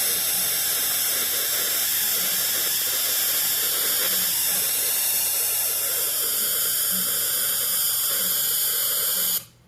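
A steady, high-pitched hiss with a whine in it, which cuts off suddenly near the end.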